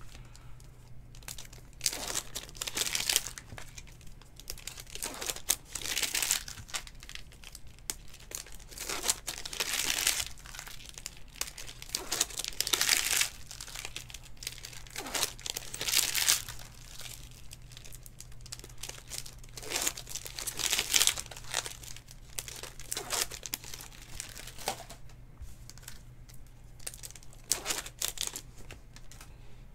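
Trading-card pack wrappers crinkling and tearing as packs are ripped open and the cards handled, in irregular rustling bursts every second or two.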